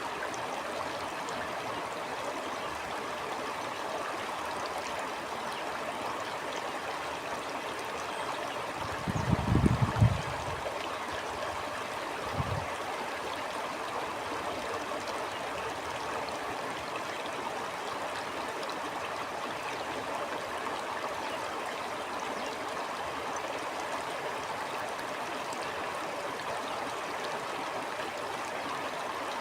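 Stream water flowing and babbling steadily. Two brief low rumbles break in, a louder one about nine seconds in and a shorter one around twelve seconds.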